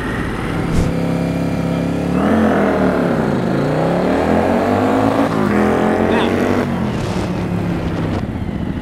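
Motorcycle engine pulling hard through the gears on a 0-to-40 mph acceleration run: the pitch climbs, jumps at each shift and climbs again, then drops away as the throttle closes about seven seconds in.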